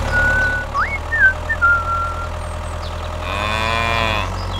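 Steady low tractor-engine drone, with a few high whistling chirps in the first two seconds; a little over three seconds in, a cow moos once for about a second.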